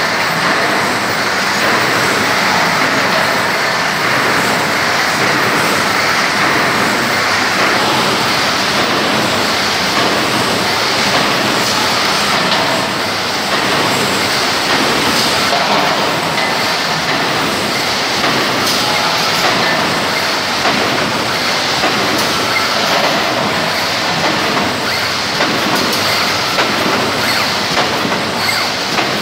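Wire mesh welding machine running in production, a loud, steady mechanical din with faint repeated ticks in the last few seconds.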